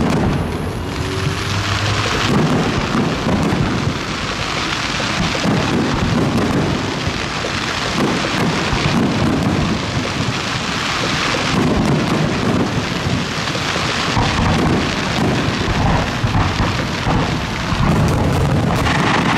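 Fireworks grand finale: aerial shells bursting in such quick succession that the bangs run together into one continuous din, with many small sharp cracks through it.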